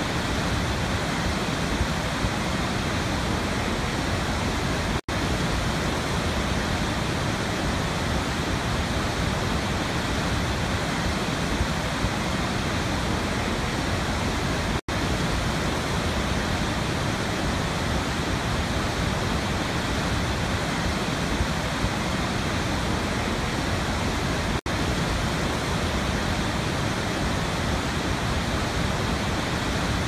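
Waterfall: a steady, full rush of falling water. The sound cuts out for an instant three times, about ten seconds apart.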